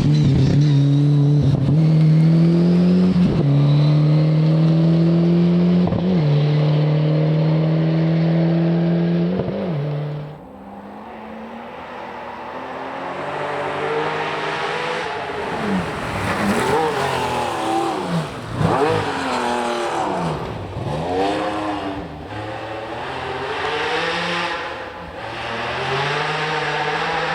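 Rally car engine at full throttle, its pitch climbing with a brief dip at each gear change; just after ten seconds it cuts off abruptly. Then another rally car engine, its revs rising and falling sharply several times as it shifts through the gears, before running steady near the end.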